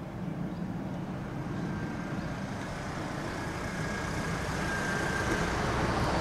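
Airbus A380's four jet engines at takeoff power during the climb-out: a broad, deep rumble growing steadily louder, with a faint high whine in the middle.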